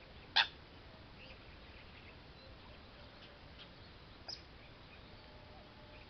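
Bird calls at the water's edge: one short, sharp call about half a second in, a fainter one about four seconds in, and a few faint chirps between.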